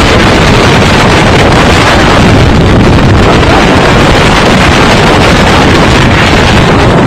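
Strong wind blasting across the microphone: a loud, unbroken roar of noise, heaviest in the low end.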